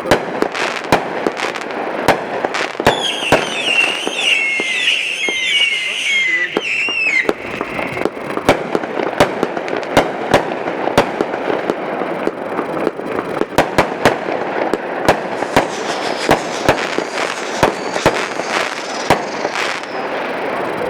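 Consumer fireworks cake ('Crazy Days', 25 shots) firing, with sharp shots and bursts going off every second or so over continuous crackle. About three seconds in, a wavering high whistle sounds for about four seconds.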